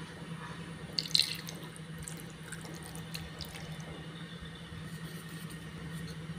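Fish sauce poured from a bottle over raw goatfish in a pot, a liquid splashing and dripping sound, with a sharp clatter about a second in. A steady low hum runs underneath.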